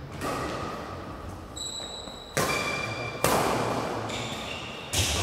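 Badminton rally: three sharp racket hits on the shuttlecock, the first two about a second apart past the middle and the third near the end, each echoing in the hall, with short high squeaks of court shoes between them.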